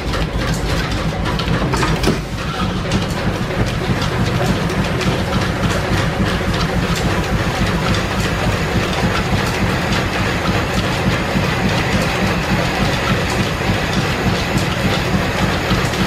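Flat-belt-driven 1925 American 18-inch lathe and its overhead line shaft running with a steady rhythmic clatter. The lathe is engaged with a knock about two seconds in, and the low rumble grows stronger from there.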